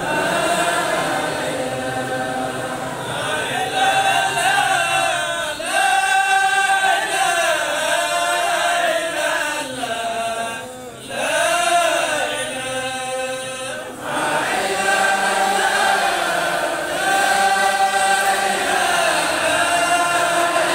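A group of voices chanting an Islamic religious chant together, a melodic line that swells and falls, briefly dropping twice in the middle.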